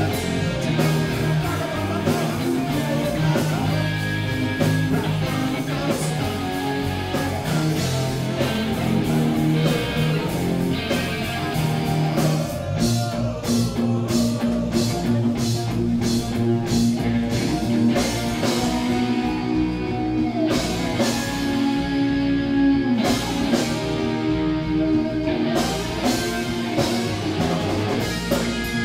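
Live rock band playing: distorted electric guitars over bass guitar and a drum kit, loud and continuous.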